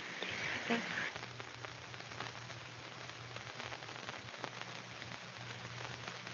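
Hiss and faint crackle of an old film soundtrack during a pause, with a steady low hum underneath and scattered small clicks.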